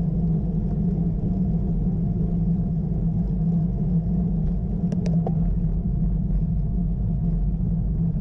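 Steady low rumble of wind and road noise on a camera carried while riding a road bike. About five seconds in there are two or three brief, sharp clicks.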